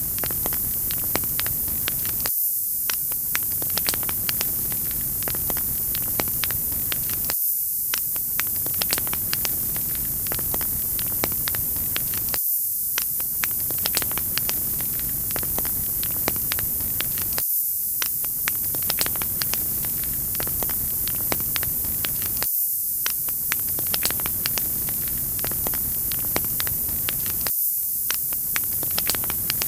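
Crackling wood fire in a fireplace: a steady hiss with frequent sharp pops and crackles. It is a short fire recording looped about every five seconds.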